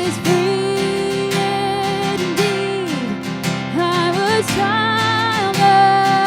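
Worship band music: acoustic guitar strumming under long held sung notes that slide between pitches.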